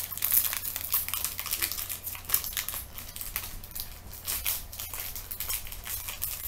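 Crinkly plastic wrapper being handled and crumpled: a continuous run of irregular crackles and rustles.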